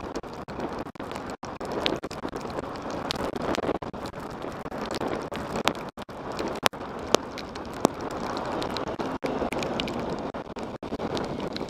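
Wind rushing over a motorcycle-mounted action camera's microphone while riding in the rain, with scattered sharp ticks of raindrops hitting the camera.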